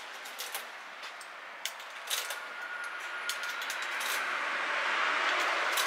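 Coins put one at a time into the coin slot of a coin-operated produce locker, heard as a handful of short metallic clicks in the first half. A rushing background noise swells over the last few seconds and is louder than the clicks.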